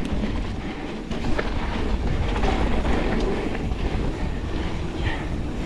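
2025 Pivot Switchblade mountain bike rattling and clattering down a chunky rock section, tyres hitting rock in a dense, steady racket with a low rumble underneath.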